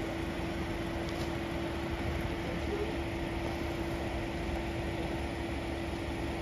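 A steady machine hum: one constant drone over low rumbling noise, unchanging throughout.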